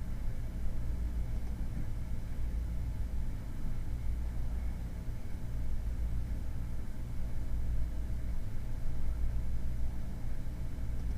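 Steady low background rumble with a faint hiss, no distinct events.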